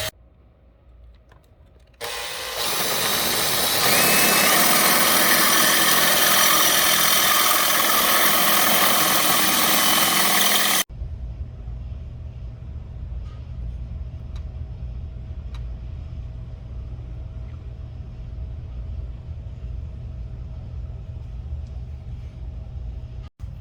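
A power drill starts about two seconds in, rises to speed and runs steadily, drilling at the marked spot for the controller mount, then stops abruptly about halfway through. After that there is only a low steady hum.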